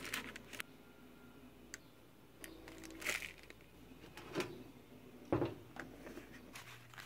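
Irregular light knocks, taps and rustles of household objects being handled, about eight separate bumps, the loudest about five and a half seconds in.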